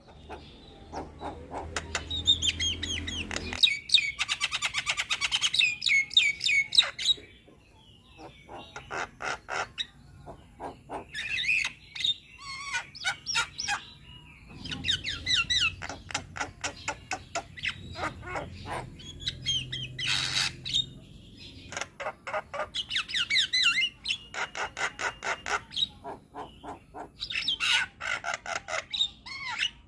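Javan myna (jalak kebo) singing a busy, varied song: fast trains of rapid clicking, chattering notes mixed with warbled phrases, coming in bursts with short pauses.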